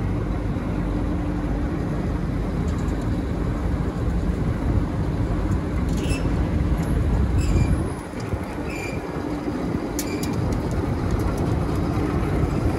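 MAN 35.480 mixer truck's diesel engine running steadily, a low rumble with a constant hum. A few short, high squeaks come between about six and ten seconds in.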